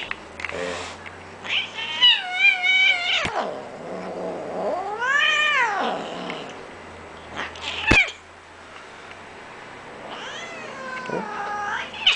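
Bengal cat meowing: about four long, drawn-out calls, one wavering and one rising then falling in pitch, the complaining meows of a cranky cat. Two sharp clicks are also heard, one about three seconds in and a louder one near the middle.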